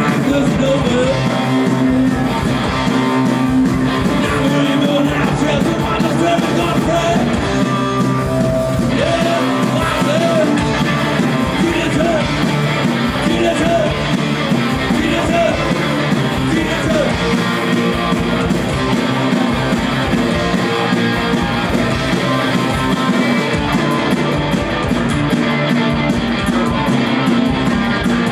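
Punk rock band playing live, loud and steady, with electric guitar, a regular drum beat and singing.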